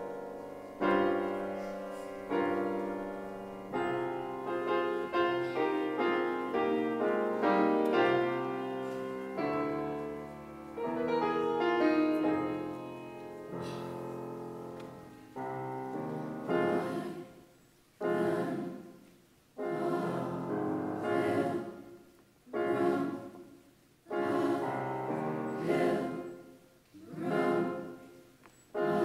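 A grand piano plays a slow introduction of sustained, decaying chords. About halfway through, a mixed youth choir comes in, singing in short phrases with brief breaks between them.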